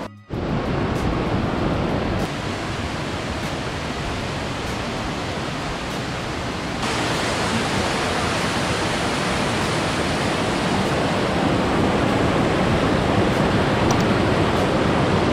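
Fast-flowing river water rushing in a steady, loud wash of noise. The level steps up abruptly about two seconds and again about seven seconds in.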